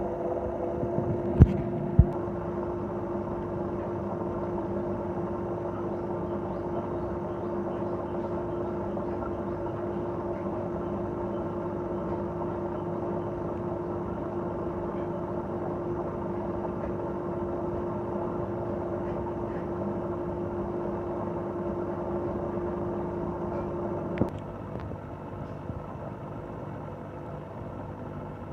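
Aquarium pump humming steadily over a hiss, with a couple of sharp clicks about a second and a half in. Near the end a click is heard and the hum's tone stops, leaving a quieter hiss.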